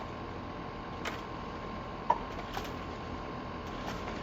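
A few scattered sharp knocks and clicks from the old wooden structure being worked loose by hand, the loudest about two seconds in; the structure is weak, bowing and twisting.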